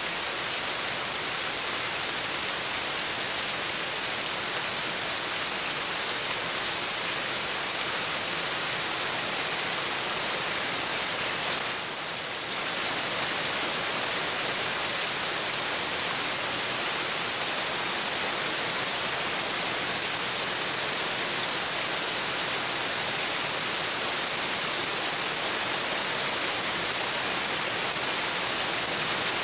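Steady rain falling during a thunderstorm, an even hiss that dips briefly about twelve seconds in.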